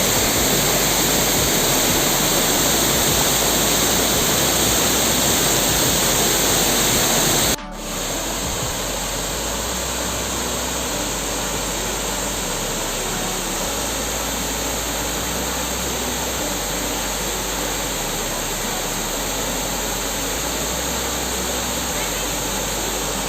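Waterfall: a steady rush of falling water. It breaks off sharply about seven and a half seconds in and comes back slightly quieter.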